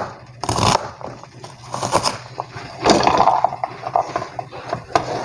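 Cleaver chopping onion on a plastic cutting board, a run of sharp knocks, then diced onion pushed and scraped off the board onto a plate near the end.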